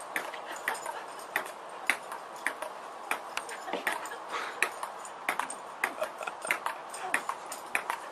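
Table tennis ball clicking sharply off the table and paddles in a rally, about two hits a second.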